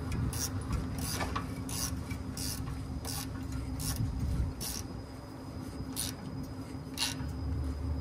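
Hand tool gripping and working the pushrod of a truck air brake chamber, giving short metallic rasps roughly every half second to second as the rod is backed out. A steady low hum runs underneath.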